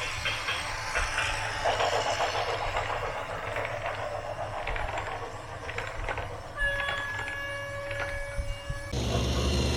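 Heavy machinery clattering and rumbling, then a steady multi-pitched horn blast of about two seconds that cuts off suddenly. An engine is running near the end.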